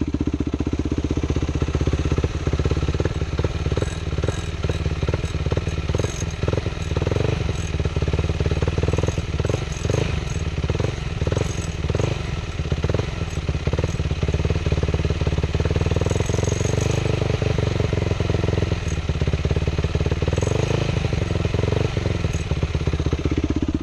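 Yamaha WR450F's 450cc single-cylinder four-stroke engine running and being revved, with a clattering, clicking sound at the higher revs through the middle stretch. The owner calls it a rattling noise that appears high in the RPMs; he suspects the crankcase or the timing chain, and tightening the timing chain did not cure it.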